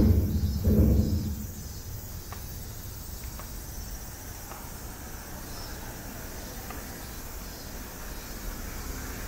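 Road traffic under an elevated expressway: a low rumble that fades out about a second and a half in. It leaves a steady faint hum of traffic with a thin high hiss above it.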